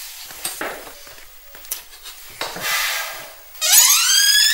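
Soft breathy sniffs and sobs, then about three and a half seconds in a loud, rising squeak as a wooden door swings open on its hinges.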